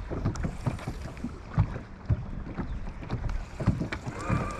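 Wind on the microphone aboard a fishing boat, with irregular knocks and low thumps on the boat. A short wavering tone comes near the end.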